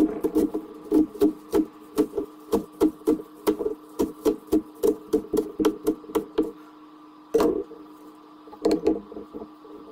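Cleaver chopping green garlic on a wooden cutting board: quick, regular chops about three a second that stop about six and a half seconds in, followed by a couple of louder knocks near the end.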